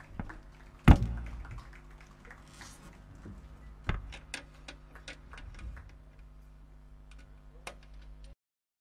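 Stage handling noise after the set: a loud thump about a second in, another near four seconds, and scattered light clicks and knocks over a steady electrical hum. The sound cuts off abruptly near the end.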